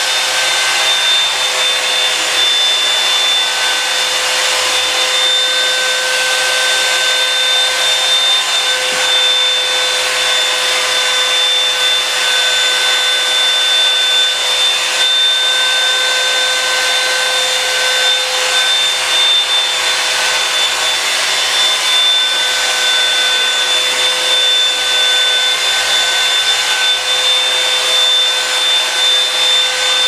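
Revlon One-Step hot-air brush running steadily while drying hair: an even rush of blown air with a steady motor whine.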